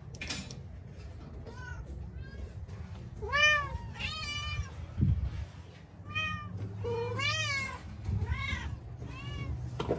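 Several cats meowing over and over, a string of short rising-and-falling meows at different pitches, loudest a few seconds in. A steady low hum runs underneath, with a single knock about halfway through.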